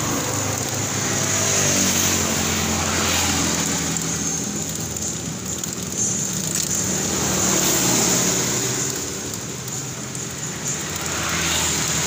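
Honda Supra X motorcycle's single-cylinder four-stroke engine running, its pitch shifting a little now and then, with the rear wheel turning and the drive chain going kretek-kretek over the sprocket. The chain is slack and rattles though it is not yet badly worn.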